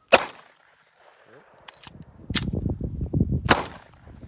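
Three 9mm handgun shots fired through a 5.5-inch AR-15 muzzle brake. The first comes right at the start and is the loudest, and the other two follow about two and three seconds later.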